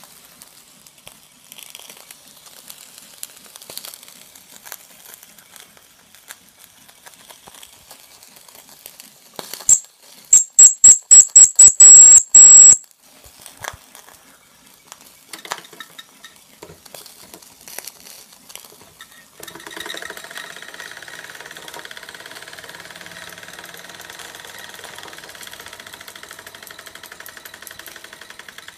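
Mamod model steam engine: a run of about eight short, very loud, high-pitched whistle blasts about ten seconds in. From about twenty seconds in the little engine runs steadily with a fast, even ticking.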